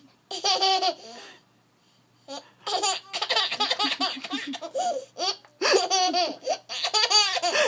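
Laughter: a short burst near the start, a pause of about a second, then a long run of repeated laughing bursts.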